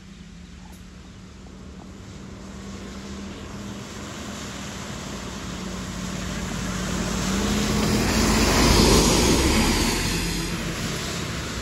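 Hino box truck approaching and passing on a wet road. Its engine hums steadily and grows louder to a peak about nine seconds in, where the tyres hiss on the wet asphalt, then it fades.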